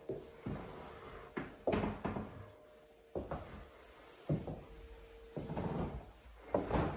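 Irregular knocks and thumps from an interior door being handled and footsteps on the floor in a small room. A faint steady hum runs under them and stops about five seconds in.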